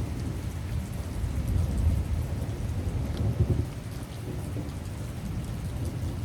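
Heavy rain pouring down steadily, with a low rumble of thunder that eases a little just before four seconds in.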